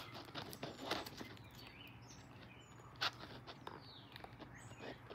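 Faint clicks, taps and light rubbing of a paper model engine's card parts being handled and turned by hand, with one sharper click about three seconds in.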